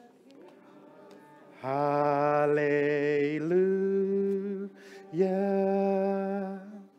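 A man singing slow, chant-like praise in long held notes. A low note begins about a second and a half in and steps up in pitch, breaks off briefly, and a second held note runs until just before the end.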